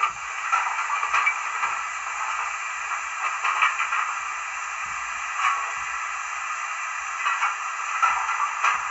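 Sound-fitted Bachmann 94XX pannier tank OO gauge model playing steam-locomotive sounds from its DCC decoder through its small onboard speaker as it moves: a steady thin hiss with little bass, broken by a few louder irregular puffs.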